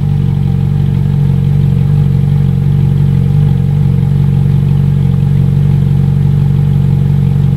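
Ferrari 458's 4.5-litre V8 idling steadily, heard from underneath the car.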